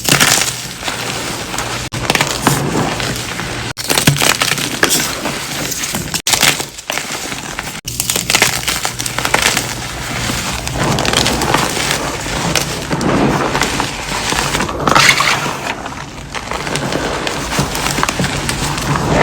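Dyed gym chalk being crushed: dense, dry crunching and crackling of brittle chalk breaking into crumbles, with several sharper cracks and a few abrupt breaks in the sound.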